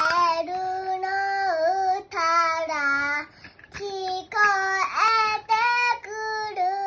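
A three-year-old girl singing with all her might, holding long notes in a loud, clear child's voice, with short breaks between phrases.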